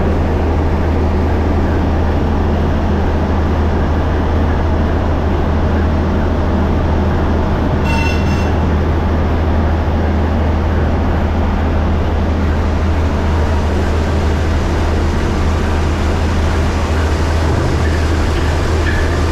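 Large inline diesel main engine of a river passenger launch running steadily, heard close up in its engine room: a loud, even drone with a deep hum beneath it. About eight seconds in, a brief high-pitched tone sounds over it.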